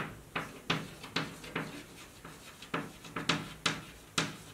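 Chalk writing on a chalkboard: a quick, uneven run of sharp taps and short scratches, about three a second.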